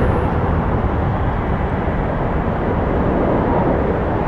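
Airbus A330-200's Rolls-Royce Trent 700 turbofans on final approach: a steady rushing jet noise, strongest in the low and middle range.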